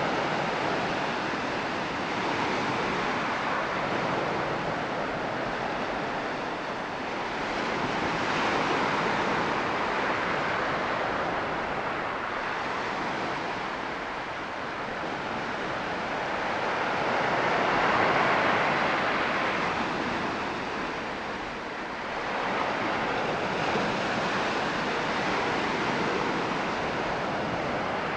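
Ocean surf breaking and washing up a sandy beach and around concrete tetrapod breakwaters, a steady rushing that swells louder and fades several times.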